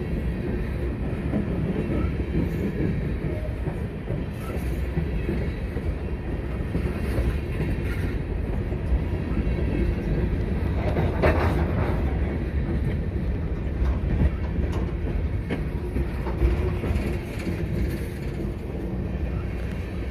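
Freight train hopper cars rolling past close by: steel wheels running on the rails in a steady low noise, with a brief louder burst about halfway through.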